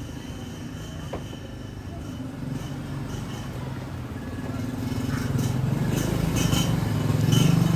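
A low engine hum that grows louder over the second half, with a few sharp knocks near the end.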